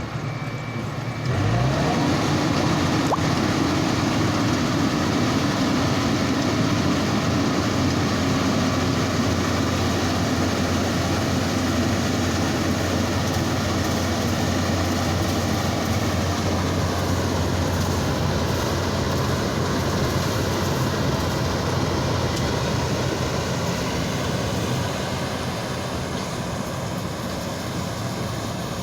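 Rice combine harvester engine running steadily under load, revving up about a second in and easing off slightly near the end.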